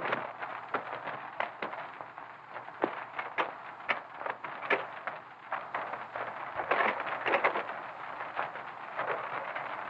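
Steady hiss of an early sound-film soundtrack, with scattered irregular clicks and soft knocks.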